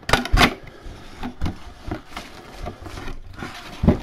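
Cardboard mini-helmet box being opened by hand: its flaps are folded back and a cardboard insert is handled, giving a string of papery rustles and knocks. The loudest come right at the start and just before the end.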